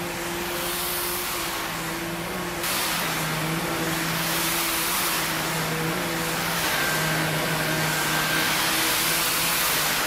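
Samsung Bespoke Jet cordless stick vacuum running over high-pile carpet: a steady rushing whir with a low hum, stepping up through its suction modes. It starts on mid, goes up to max about three seconds in, and reaches its top Jet mode a little before seven seconds, each step a little louder.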